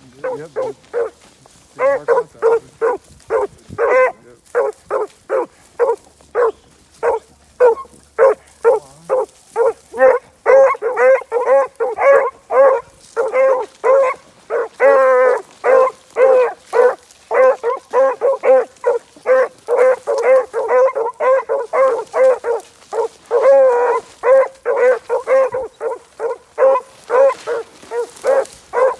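15-inch male beagles baying on a rabbit track: a fast, steady run of short, high barks, about two to three a second, carrying on with only brief pauses.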